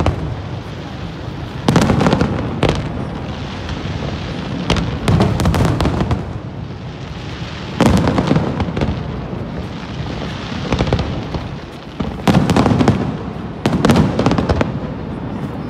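Aerial fireworks shells bursting in a display: a run of loud booms every one to three seconds, with crackling in between.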